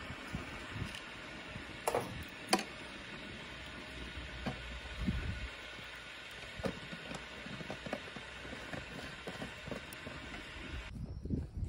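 Wood fire burning in a samovar, a steady rushing noise with scattered crackles and a couple of sharp clicks a couple of seconds in; the noise stops abruptly near the end.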